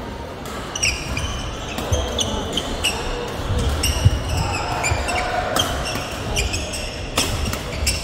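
Badminton rally on a wooden sports-hall court: a string of sharp racket-on-shuttlecock strikes, roughly one every second or so with the loudest about halfway, mixed with short high squeaks of court shoes on the floor, echoing in a large hall over background chatter.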